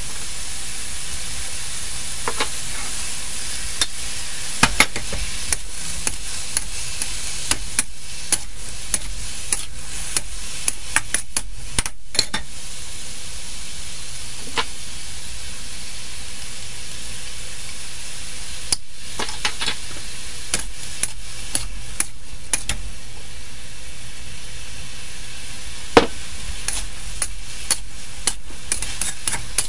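Bean sprouts, chicken and green onion sizzling steadily in a hot wok, with a spatula clicking and scraping against the wok in spells of stirring and tossing.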